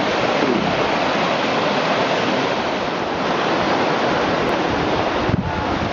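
Fast sea water rushing through rapids over rocks, a steady loud rushing. Near the end, wind starts buffeting the microphone.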